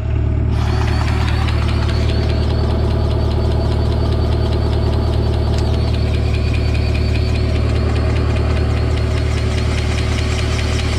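Takeuchi TB45 mini excavator's diesel engine running steadily.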